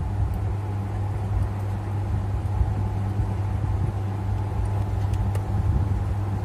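A steady low hum, with a few faint small clicks from wire leads and a clip being handled.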